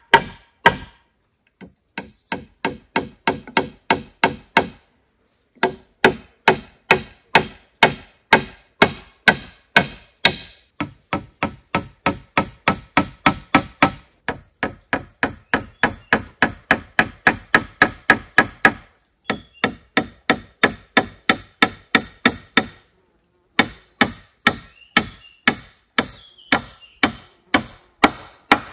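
A hand tool striking wood in rapid, regular blows, about three a second, in runs broken by short pauses, each blow ringing briefly.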